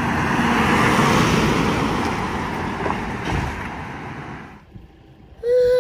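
Toyota Land Cruiser towing a camper trailer driving past: engine and tyre noise that swells about a second in, then fades away over the next few seconds. A voice starts just before the end.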